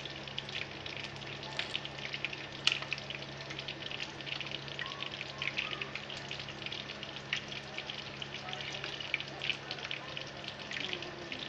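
Flour-coated chicken pieces frying in hot oil, a steady sizzle with many small crackling pops, the oil at a moderate frying heat.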